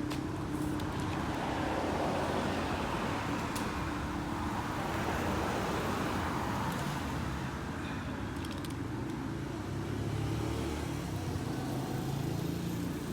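A steady low engine hum, with a swell of road noise that builds and fades over the first several seconds, like a motor vehicle passing.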